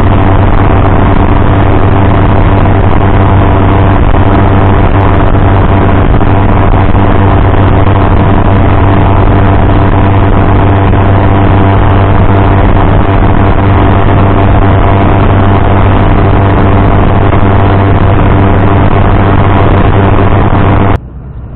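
Small boat's outboard motor running steadily under way, loud and even, with a strong low hum. It cuts off suddenly near the end.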